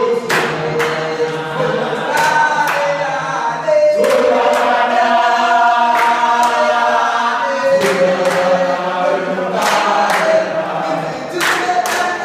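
A group of voices singing together in chorus, holding long notes that change pitch in steps, with sharp hits, like claps or stamps, every second or so.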